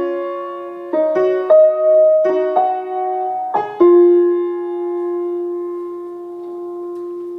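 Piano playing a slow passage of chords, ending on a final chord that rings for about four seconds before it stops.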